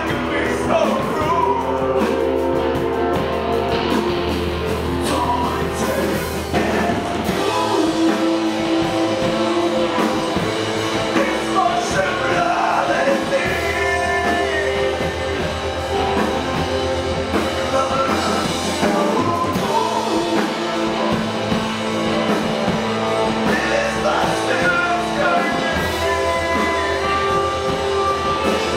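Live rock band playing: drum kit, electric guitar, keyboard and saxophone, with a voice singing. A low bass line drops out and comes back a few times.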